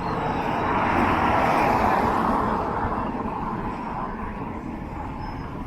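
A road vehicle passing close by: its noise swells to a peak about one to two seconds in and then fades away.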